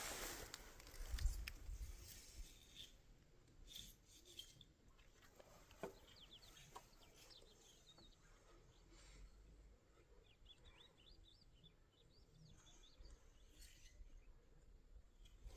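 Near silence: faint small-bird chirps in two short spells, with a few light knocks and a low rumble in the first couple of seconds.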